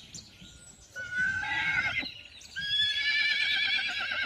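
Horse whinnying twice: a short quavering call about a second in, then a longer quavering call from about two and a half seconds.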